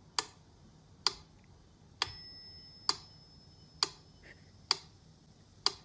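Mechanical pendulum metronome ticking at a steady slow beat, about one tick a second, seven ticks in all. The tick about two seconds in rings with a bell-like tone, marking the accented beat.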